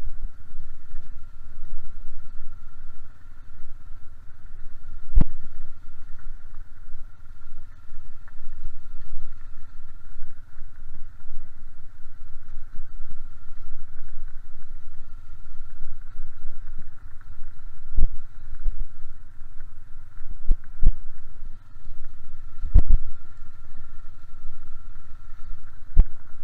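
Red Honda ATV running at low speed over a gravel track, a steady engine rumble with a steady whine above it. Several sharp knocks at scattered moments as the machine jolts over bumps.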